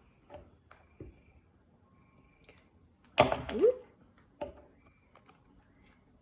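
A few faint taps and clicks of paper handling as a cut-out paper letter is glued onto a worksheet, with a woman saying "Okay" about three seconds in.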